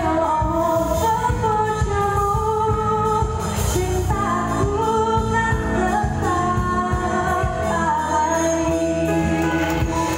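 A woman singing a song into a microphone, amplified, over a live band of drum kit, keyboard and guitar. She holds one long note near the end.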